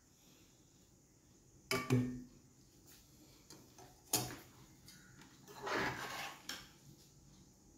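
A serving spoon knocking and scraping against a nonstick pan as cooked rice is spooned in: two sharp knocks about two seconds apart, the first with a short ring, then a longer scrape.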